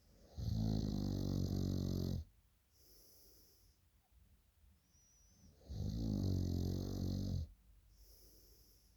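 A person snoring loudly in sleep: two long, low snores about five seconds apart, each lasting nearly two seconds, with soft breaths out between them.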